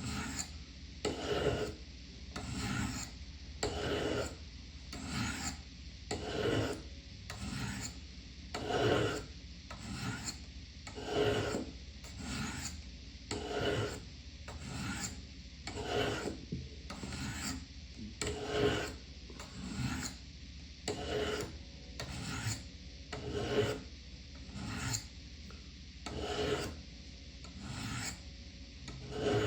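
Knife blade drawn again and again along the coarse ceramic rods of a Spyderco Triangle Sharpmaker, one scraping stroke about every 1.2 seconds in a steady, even rhythm.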